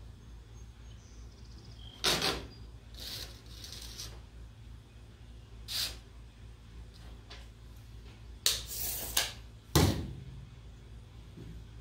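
A handful of sharp knocks and clunks, about five spread out, with the loudest just before the end, over a steady low hum.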